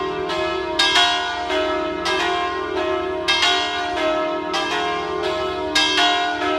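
The three largest bells of a five-bell peal with a low E-flat tenor, swung electrically in full peal. Their clappers strike in an uneven, overlapping pattern of about two strokes a second, each bell ringing on under the next strokes.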